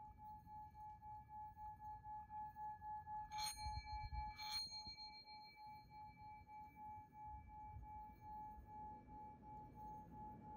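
Faint sound-healing track: a single steady tone that pulses gently, with two bright chime-like strikes about three and a half and four and a half seconds in, each left ringing.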